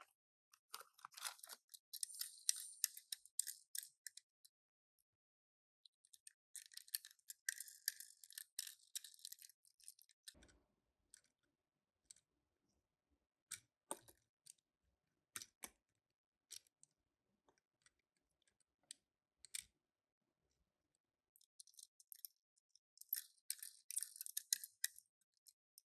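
Toy-car packaging being handled and opened by hand: three spells of faint crinkly rustling, one near the start, one in the middle and one near the end, with scattered small clicks and taps between them.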